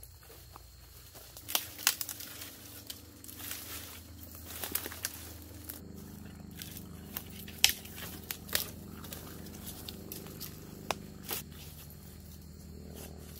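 Footsteps crashing through dry brush, with twigs and branches cracking and snapping underfoot, the loudest snaps near the middle. Under it an airplane drones steadily, its hum growing fuller from about halfway.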